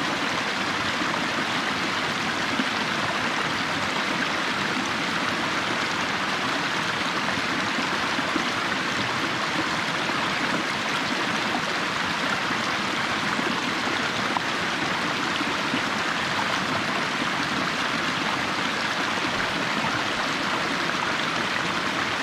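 Waterfall rushing steadily, a constant even roar of falling and cascading water.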